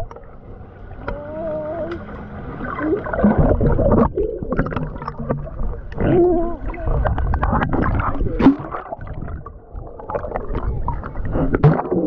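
Underwater in a swimming pool through a GoPro: a muffled rumble and gurgle of moving water with scattered sharp clicks, and faint wavering tones of people's voices carried through the water.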